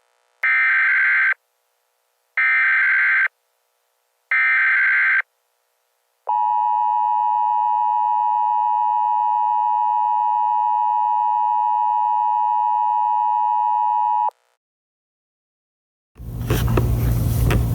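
Emergency Alert System tones: three short bursts of SAME header data tones, about two seconds apart, then the EAS two-tone attention signal (853 and 960 Hz). The attention signal holds steady for about eight seconds and cuts off sharply. Near the end a loud noisy sound with a low hum begins.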